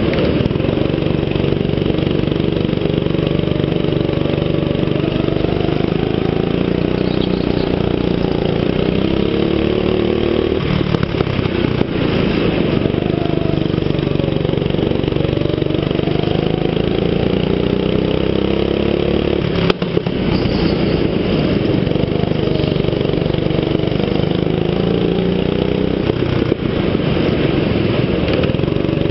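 Go-kart engine running close to the mic, its pitch rising and falling over and over as the kart speeds up and slows on the track. The engine note drops briefly twice, about ten and twenty seconds in.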